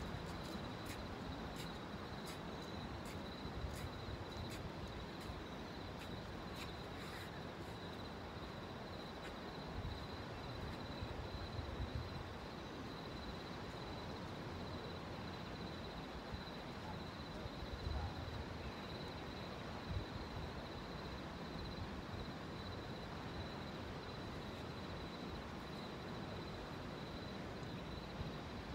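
Steady high-pitched insect trilling, unbroken throughout, over a low outdoor rumble that swells briefly about twelve and eighteen seconds in. A few faint clicks come in the first few seconds.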